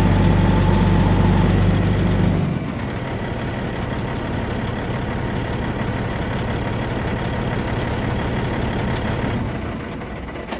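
Tipper truck's engine running at idle while driving the hydraulic pump through a pressure test. About two and a half seconds in, the engine sound drops suddenly to a quieter, lower note as the pressure on the gauge falls away.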